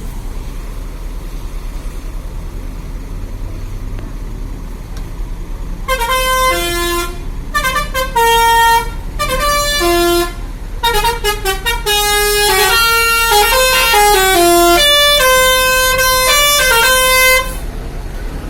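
A bus's telolet musical horn playing a quick tune of short stepping notes, several sounding together, over a steady low rumble; the tune starts about six seconds in and stops shortly before the end.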